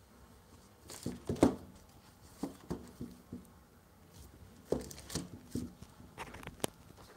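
Hands handling a thick paperback book over plastic mailer packaging: scattered taps and rustles, the loudest about one and a half seconds in.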